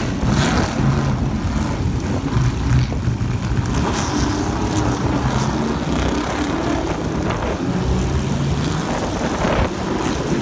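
Engines of several historic race cars running loudly at low revs as they pull slowly out of pit lane, their pitch rising and falling a little.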